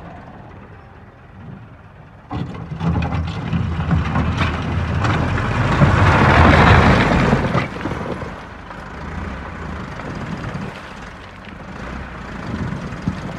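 Massey Ferguson 375 tractor's four-cylinder diesel engine working under load as its front loader bucket is driven into a pile of stony gravel, with stones scraping and clattering into the bucket. The sound picks up suddenly about two seconds in and is loudest in the middle, then the engine eases back to a steadier run.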